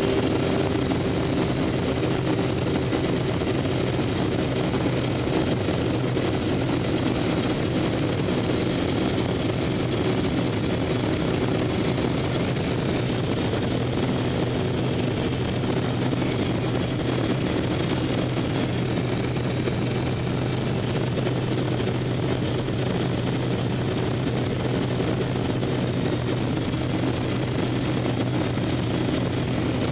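Propeller aircraft's engine and propeller heard from inside the cabin in flight: a steady, unchanging drone with a low hum and a higher tone over a rushing noise.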